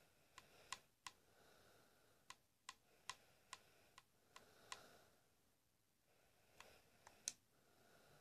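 Faint, sharp clicks at irregular intervals, about fifteen of them, spaced from a fraction of a second to over a second apart.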